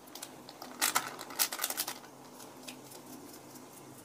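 Plastic sachet of ground pepper being shaken and tapped over a pot of soup: a cluster of quick crinkly rustles and clicks about a second in, then a few lighter taps.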